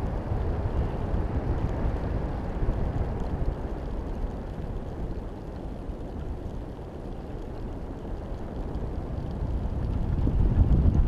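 Wind buffeting the microphone of a camera hanging beneath a high-altitude balloon in flight, a low, uneven rush that eases off in the middle and grows again near the end.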